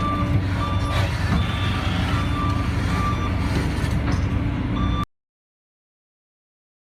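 Heavy diesel vehicle or machine running with a backup alarm beeping repeatedly over it. About five seconds in, both cut off abruptly into silence.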